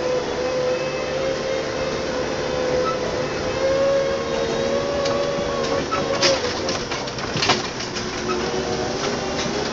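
Farm tractor engine running with a steady drone as it drives. From about five seconds in, branches brush against the tractor and its front-loader grab with a run of sharp crackles and snaps.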